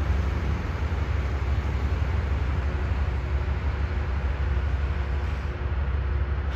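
Rail grinding machine running, a steady deep rumble with an even hiss over it.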